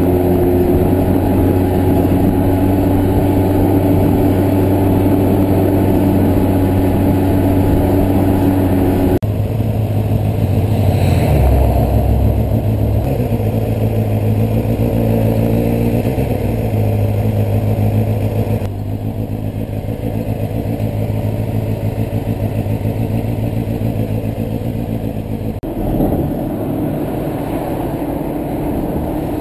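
Motorcycle engine running at road speed with wind and road noise. About midway the engine note dips and climbs again, as with a gear change. The sound changes abruptly three times where separate clips are joined.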